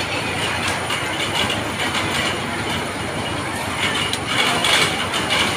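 Octopus carnival ride running at speed: a steady mechanical rumble and clatter as its arms spin the cars. There is a louder, higher-pitched patch about four and a half seconds in.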